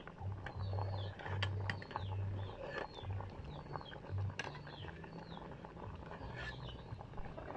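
Metal ladle clinking a few times against an aluminium pot while stirring soup, with birds chirping in short falling calls and a low hum that comes and goes.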